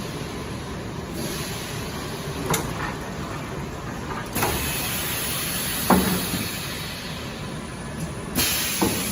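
Pneumatic press of a high-frequency PVC welding machine cycling: two stretches of air hiss and a few sharp metallic clicks and knocks over a steady background noise.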